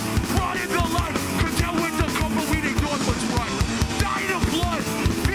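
Hardcore punk band playing live: distorted electric guitars, bass and fast drums, with shouted vocals over them.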